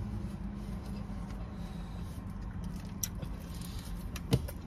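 Steady low hum of a car idling, heard from inside the cabin, with a few light clicks and one sharp tap near the end.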